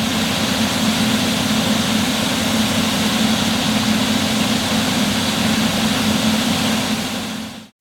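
New Holland CR 11 combine harvester running steadily while harvesting soybeans: a constant engine hum under a wash of machine noise. It fades out near the end.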